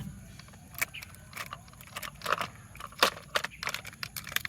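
Irregular light clicks, taps and clatter of small plastic toy vehicles being handled, including a toy excavator, with a sharper knock about three seconds in.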